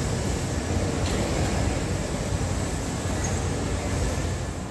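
Steady rumbling background noise of a railway station platform, with no distinct knocks or announcements.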